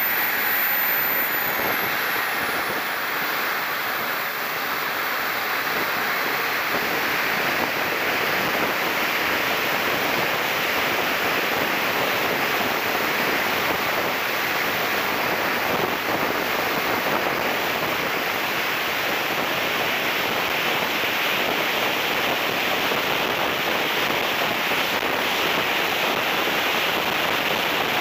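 Steady rush of air over the onboard wing camera of a BVM F9F-6 Cougar turbine RC jet in flight. A faint high whine glides down about two seconds in.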